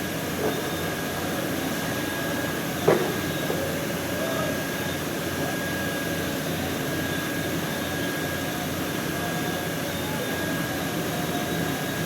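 Steady machine-like background noise with a thin high whine running through it, and a single sharp click about three seconds in.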